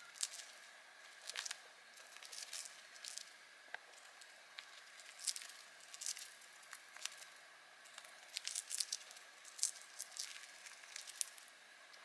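A budgerigar's beak nibbling and shredding a thin dyed balsa wood chip: irregular little crackles and crunches that come in quick clusters.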